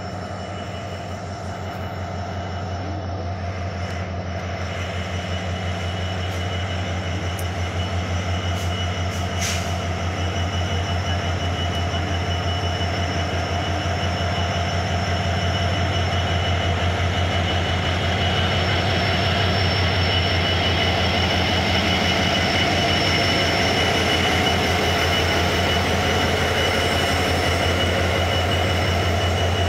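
Sri Lanka Railways Class M11 diesel-electric locomotive pulling a train slowly into a station: a steady deep engine drone that grows louder as it draws alongside, with a steady high whine above it.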